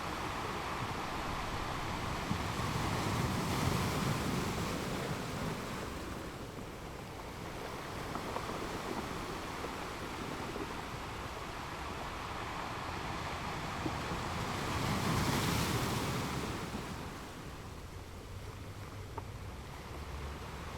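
Gentle ocean surf: waves washing onto the beach, the rush swelling twice, about four seconds in and again about fifteen seconds in.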